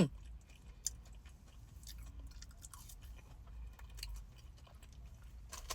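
Faint chewing of a deep-fried crab cake, with small crunches and soft mouth clicks, one sharper click about a second in.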